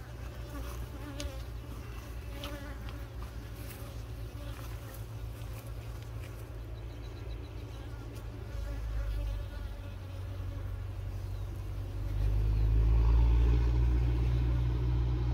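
Honeybees buzzing around an open hive, from a defensive colony that keeps attacking the beekeepers. A low rumble comes in and grows louder near the end.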